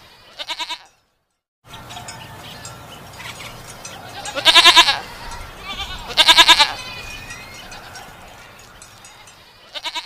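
Goats bleating: a short quavering bleat just after the start, two loud quavering bleats about a second and a half apart in the middle, and another short bleat at the end.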